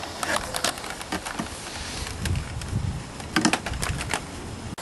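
Handling noise: a quick run of light plastic clicks and knocks as the portable monitor and gear are handled, then a low rumble, then a second, louder run of clicks about three and a half seconds in.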